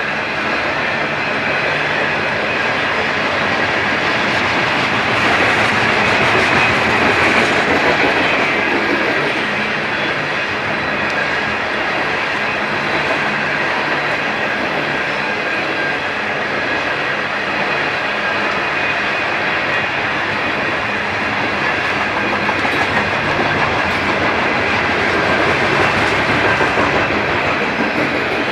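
Freight train cars rolling past on the rails: a loud, steady rush of wheel and car noise with a few thin high ringing tones over it.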